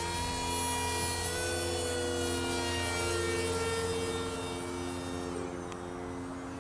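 Electric motor and propeller of an RC parkjet model of a Boeing ALCM cruise missile whining in flight overhead. The pitch climbs during the first second, holds, then slides down over the last couple of seconds, over a steady low hum.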